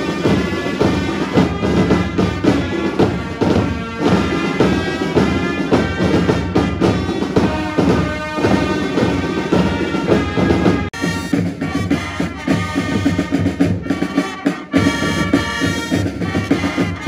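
A fanfare corps playing: fanfare trumpets sounding together over marching drums with a steady beat. About eleven seconds in, the music cuts off abruptly and a different passage of music follows.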